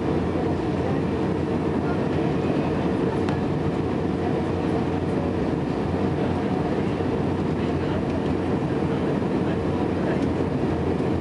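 Steady cabin noise inside an Airbus A300 airliner on final approach with flaps extended: the jet engines running and air rushing past the fuselage, with a faint steady hum.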